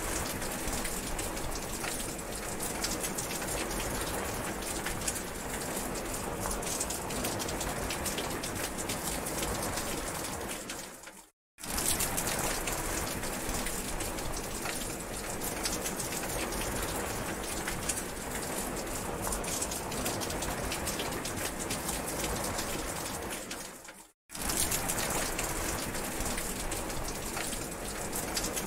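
Steady rain falling, a dense even hiss full of fine drop impacts. It cuts out to silence for a moment twice, once near the middle and once toward the end, then carries on unchanged.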